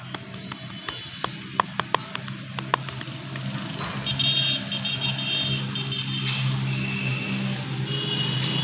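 A quick, uneven run of about nine sharp smacks from hands working on a person's back during a massage, over the first three seconds or so. From about four seconds in, a steady low hum with several high, thin tones takes over and is louder than the smacks.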